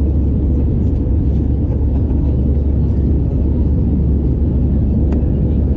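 Airbus A320-214's CFM56-5B turbofan engines at climb power, heard inside the cabin from a window seat over the wing as a loud, steady low roar.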